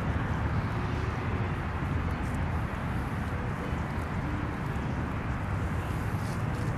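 Steady low rumble of background noise, even throughout, with no distinct sound standing out.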